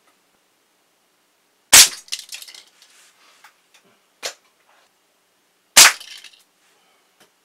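Two loud shots from a Hammerli Pneuma .22 air rifle, about four seconds apart, each striking a die-cast toy car. Each shot is followed by a short clatter of the hit car and debris skittering across the hard floor, and a single sharper click falls between the shots.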